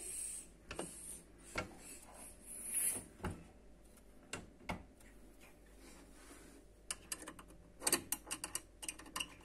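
Kitchen cabinet door and hinge being handled during repair: scattered clicks and knocks with a couple of short scrapes, and a quick run of clicks near the end.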